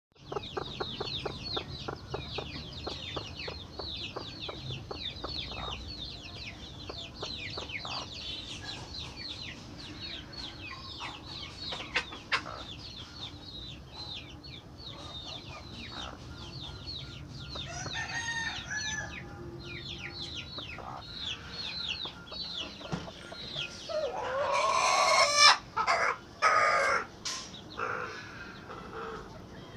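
Newly hatched chicks peeping continuously: high, short, falling cheeps, several a second. About 24 seconds in, a rooster crows loudly, the loudest sound here.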